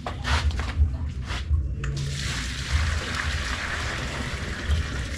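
Water splashing a few times, then poured in a steady stream into a container from about two seconds in.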